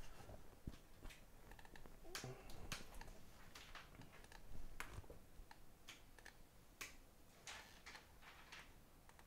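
Faint, irregular clicks and light taps, a second or so apart, from a computer mouse being clicked and small items being handled on a rubber work mat.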